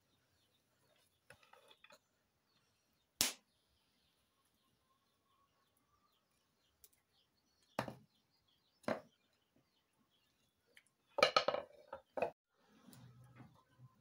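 A few separate sharp knocks and clinks of a knife and plastic plates as avocado is sliced and served: one knock about three seconds in, two more around eight and nine seconds, and a short run of clatters near the end as a plate is handled.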